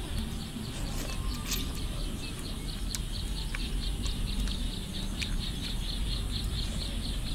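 A high chirp repeated about four to five times a second from an animal in the surroundings, over a low steady rumble. A few sharp clicks of a metal spoon against a ceramic bowl as she eats.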